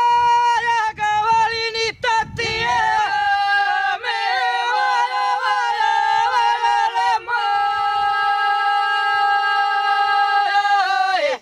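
Three women singing ojkavica, the unaccompanied Dalmatian folk song, in close harmony. They hold long loud notes with quavering ornaments, and the phrase ends in a downward slide and a sudden stop near the end.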